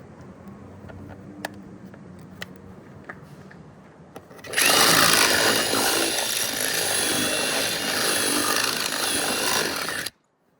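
Power drill running loud and steady for about five seconds, starting suddenly about halfway through and cutting off abruptly; the bit is drilling holes through the car's sheet-metal roof for threaded inserts. Before it, a few light clicks of handling.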